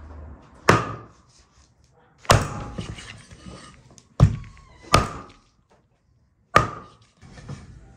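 Five sharp knocks, irregularly spaced one to two seconds apart, each with a short ringing tail.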